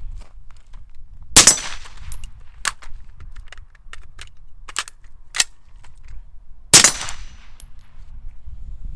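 Two shots from an integrally suppressed Gemtech Integra rifle, about five seconds apart, each a sharp crack with a short tail. Smaller sharp clicks and clacks fall between the shots.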